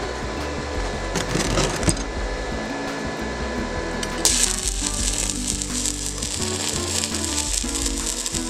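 Stick welding arc struck on steel square tubing about halfway through, then crackling and sizzling steadily as the rod burns. Background music plays throughout, with a couple of light clicks before the arc.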